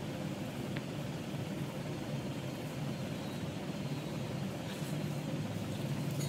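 A steady low rumble, like a machine running in the background.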